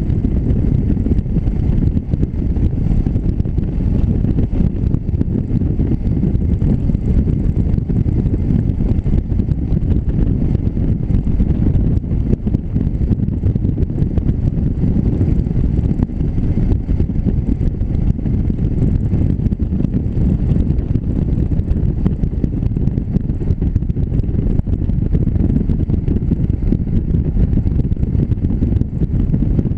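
Motorcycle riding at a steady speed, its engine running under a steady rumble of wind on the microphone of the bike-mounted camera.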